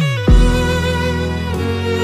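Background music: long held notes, with a falling slide and a single beat near the start.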